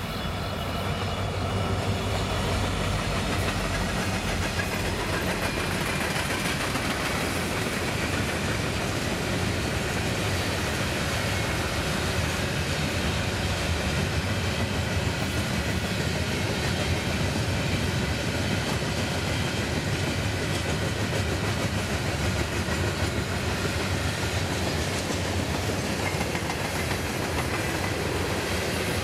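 A pair of Norfolk Southern SD60E diesel locomotives pulling a freight train past, their EMD 710 engines heard in the first seconds. A long string of steel coil cars follows, rolling by with a steady clatter of wheels on rail.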